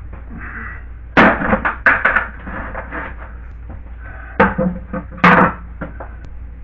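A few short knocks and rustling scrapes, as of things being handled and moved about, over a steady low hum.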